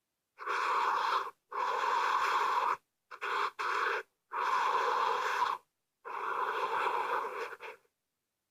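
A sound-effect clip of five breath-like noisy bursts, each about a second long, separated by short gaps of dead silence.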